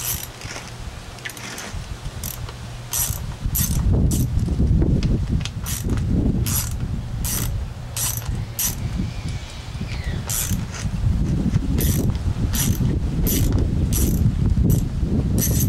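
A hand ratchet clicking in short bursts, one every half second to a second, as screws are backed out of a vapor separator tank housing, over a low rumble.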